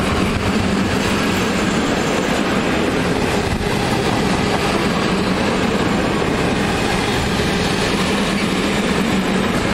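Open-top freight coal wagons of a passing goods train rolling by on the rails: a steady, loud rumble and rattle of wheels and wagon bodies.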